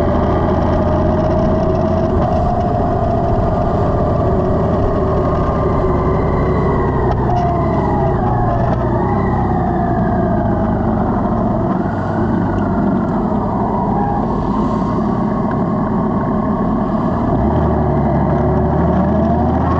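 Honda Gold Wing's flat-six engine running under way over a steady rush of wind, its pitch sliding down and back up several times midway as the road speed changes.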